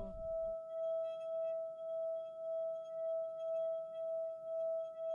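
A singing bowl ringing with one sustained tone that pulses in a slow, even wobble, about two beats a second.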